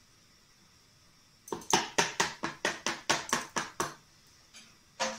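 A hand-mixer beater knocked rapidly against the mixing bowl to shake off wet, sticky dough: about a dozen sharp taps at roughly five a second, then two more single knocks near the end.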